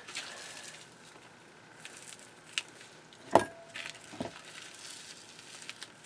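Rubber-gloved hands pulling the heads off partly thawed frozen squid on a plastic cutting board: quiet handling noise with a few light taps and knocks, the sharpest a little past the middle with a short ring after it.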